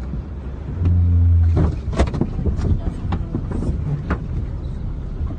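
Flash-flood water rushing around a car, heard from inside, with a steady rumble throughout. A low hum sounds for under a second about a second in, followed by a run of sharp knocks.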